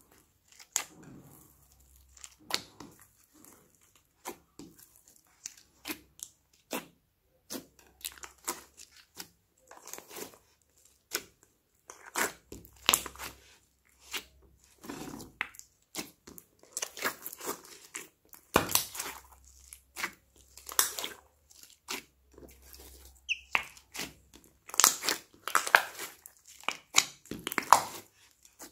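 Slime being kneaded by hand with soft piped clay worked into it: irregular sticky crackles, clicks and squelchy pops. They are sparse at first and grow busier and louder from about halfway.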